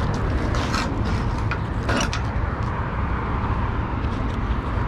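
Steady rumble of road traffic, with a few short metallic clicks in the first two seconds as a rusty metal pipe and its fitting are handled.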